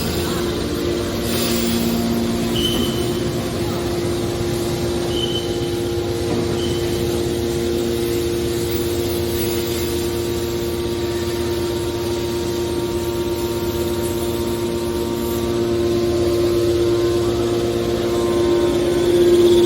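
Hydraulic metal baler running: a steady hum from its electric motor and hydraulic pump, with a few faint short high squeaks in the first seconds and a slight swell in loudness near the end.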